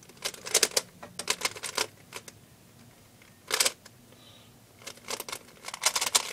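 A 3x3 Rubik's cube being turned fast during a speedsolve, its plastic layers clacking in quick runs of clicks with short pauses between, as the first two layers are worked.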